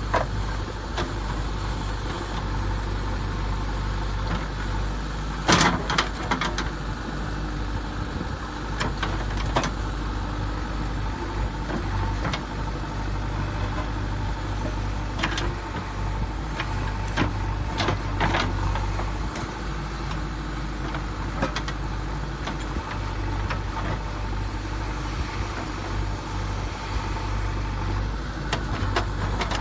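Steady, engine-like idling drone, with a few short sharp clicks and rattles about five seconds in and again around the middle.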